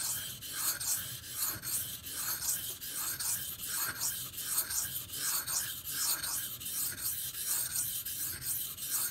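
Steel knife blade stroked back and forth on a coarse 500-grit Beston whetstone: an even scraping rasp, about three strokes a second, as the edge is ground back to remove chips.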